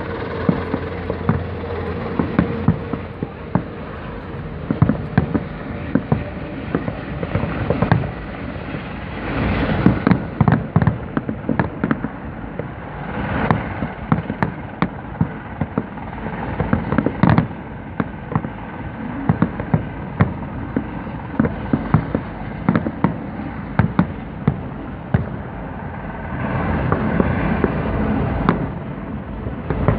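Fireworks show with a long, irregular string of shell bursts and crackling bangs. Heavier volleys come about ten, thirteen and seventeen seconds in, and a dense barrage builds near the end.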